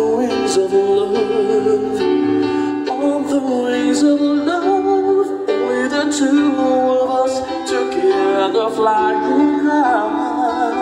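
Live music: an electronic keyboard playing chords under a wavering sung melody line, a slow love song.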